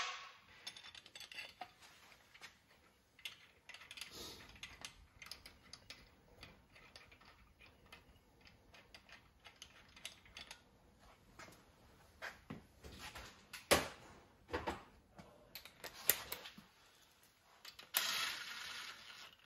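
Hand tools and metal engine parts clicking and clinking as they are worked on, with two sharper knocks partway through and a burst of harsher noise lasting about a second and a half near the end.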